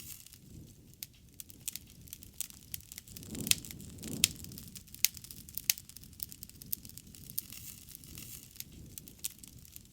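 Wood fire crackling: irregular sharp pops and snaps over a soft low rumble of burning, with the two loudest pops about three and a half and four seconds in.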